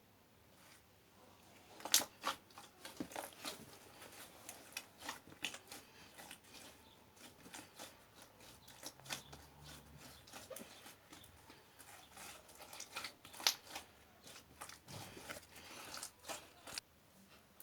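Slime being mixed and squished, making an irregular string of sticky pops and crackles, with a louder pop about two seconds in and another near the end.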